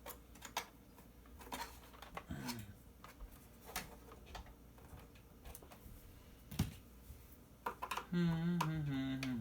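Scattered light clicks and knocks of a plastic vacuum cleaner housing and parts being handled and pried at during disassembly, with one sharper knock about two-thirds of the way through. A man's voice murmurs near the end.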